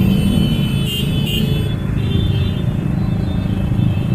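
Dense street traffic: car and motorcycle engines running close by in a steady rumble, with two short sharp high sounds about a second in.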